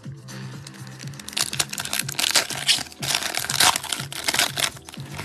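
Foil wrapper of a Mosaic football trading-card pack being crinkled and torn open by gloved hands, in a run of sharp crackles from about a second in until near the end, over steady background music.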